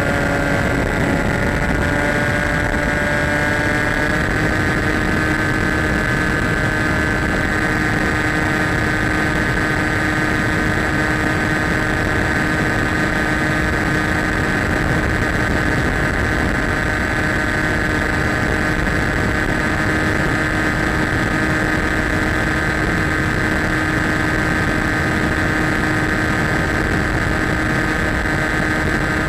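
Skywalker RC plane's electric motor and propeller running with a steady whine over a rush of wind noise. The pitch rises a little in the first few seconds, then holds steady.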